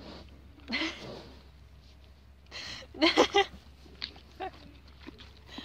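A horse sniffing and blowing with its nose right at the microphone, then a girl's short burst of laughter, three quick pulses, about three seconds in.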